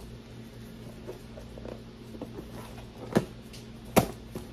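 Packaging of a new flat iron being handled: soft rustling and small clicks, with two sharper clicks about three seconds in and near the end.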